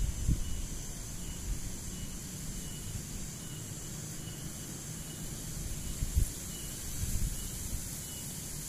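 Steady high chirring of insects in grass, with a faint high chirp repeating at even spacing. Beneath it runs a low rumble with a few soft bumps.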